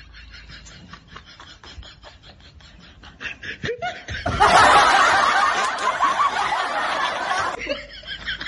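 Snickering laughter in quick short bursts. About four seconds in it becomes a much louder stretch of laughter lasting some three seconds, then drops back to snickering.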